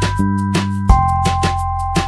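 Background music with a steady drum beat under held notes.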